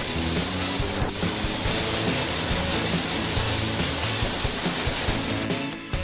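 Compressed air hissing hard from an air gun in two bursts, a short one and then a long one after a brief break about a second in, cutting off suddenly near the end.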